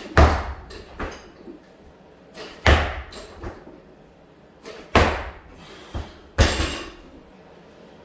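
Loaded barbell with bumper plates clanking through repeated hang power clean reps: four sharp metallic clanks with short ringing, each with a lighter knock near it, roughly every two seconds.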